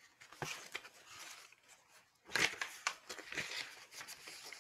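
Paper rustling and crinkling close to the microphone as book pages are handled and turned, with a few light clicks, louder from about halfway through.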